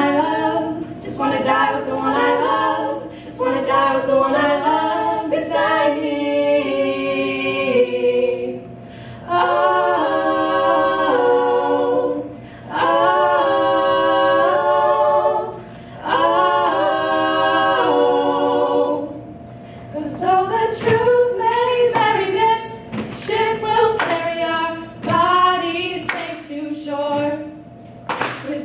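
Three female voices singing a pop song in close harmony over a strummed acoustic guitar, holding three long sustained chords midway. Hand claps keep the beat in the last part.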